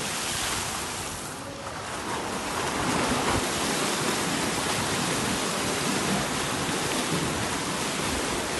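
Many swimmers sprinting front crawl side by side, their arms and kicks churning the water in a steady splashing.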